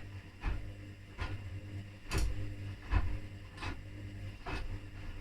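Candy 10 kg washing machine struggling with an unbalanced drum: a steady low hum with sharp knocks repeating roughly every three-quarters of a second, a sign of a really uneven load.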